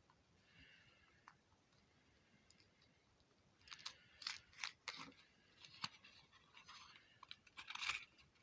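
Kinder Surprise egg being handled and opened: quiet scattered clicks, then a run of sharp crinkling and crackling from about three and a half seconds in that stops just before the end.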